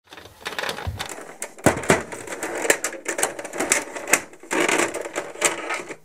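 Brother SX-4000 electronic daisywheel typewriter printing: sharp clacking strikes at an uneven pace, with a longer rasping stretch about four and a half seconds in.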